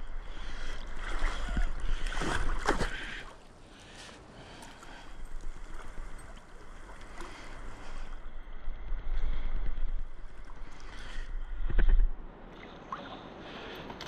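Water splashing and sloshing around a person swimming through a deep stream pool, over a steady low rumble on an action camera's microphone. The splashing is loudest about two and a half seconds in and again near twelve seconds.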